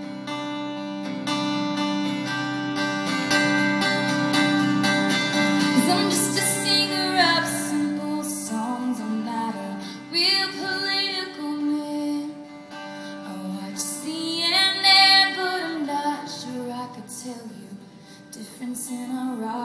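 Live acoustic guitar strumming steadily under a woman's solo singing voice, three slow sung lines, each ending on a long wavering held note.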